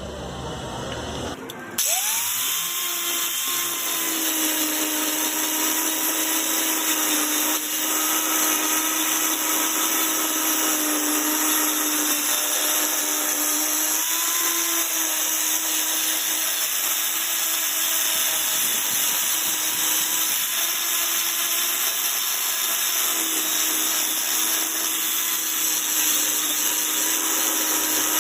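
Electric power tool starting about two seconds in, its motor whine rising quickly to speed, then running steadily under load with a strong hiss, as when working metal.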